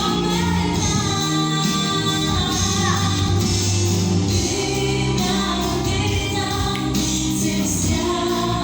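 Music: a song with a woman singing over instrumental accompaniment.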